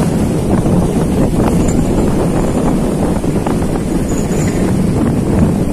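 Steady low rumble aboard a ship under way at sea, with wind buffeting the microphone.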